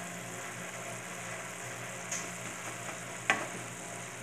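Ground pork with diced potato and carrot sizzling steadily in a frying pan. A light tick about two seconds in and a sharp metallic clink a second later, the loudest moment, come from the metal slotted spoon knocking against the pan.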